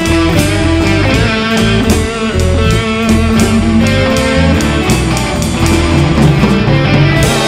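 Blues in A minor: electric guitar lead lines and bass from a play-along track, with a drum kit played along, drum and cymbal strikes keeping a steady beat.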